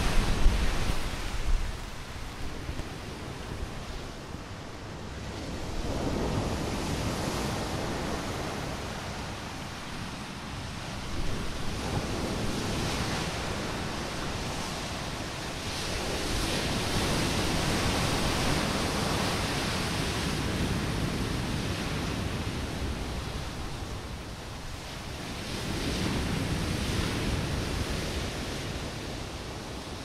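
Sea waves breaking and washing ashore in slow surges, each swell of surf rising and easing over a few seconds, with wind buffeting the microphone in low rumbles near the start.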